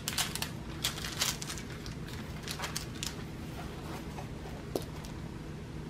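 Clear plastic cover film being peeled back from the sticky glue layer of a diamond-painting canvas: a run of soft crackles and crinkles that thins out after about three seconds, with one sharp tick near the end.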